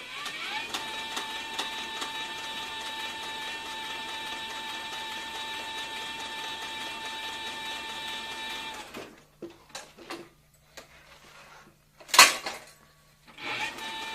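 Hightext CB4500 heavy-duty walking-foot leather sewing machine stitching, its motor giving a steady high whine that rises as it starts. The machine stops about nine seconds in. A few light knocks and one sharp, loud clack follow, then the whine starts again near the end.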